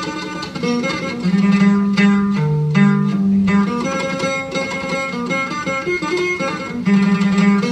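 Traditional instrumental music with plucked string instruments playing a melody, with held low notes from about a second in and again near the end.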